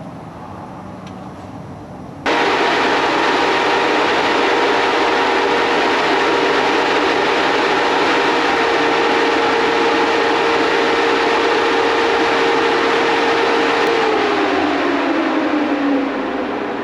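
A steady, loud rush of compressed air from a powder coating spray gun starts abruptly a couple of seconds in. Under it runs a steady hum that slides down in pitch near the end, and then the rush eases off.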